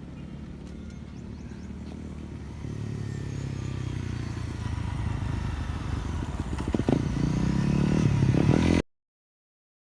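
Honda CRF250L's single-cylinder four-stroke engine running through an FMF Powercore 4 exhaust. It grows steadily louder, is loudest near the end, then cuts off suddenly.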